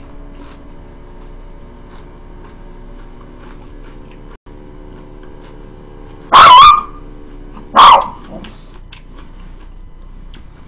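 A pet dog barks twice, loudly, about a second and a half apart, the first bark longer and wavering in pitch. Under it, a steady low hum fades out around the first bark.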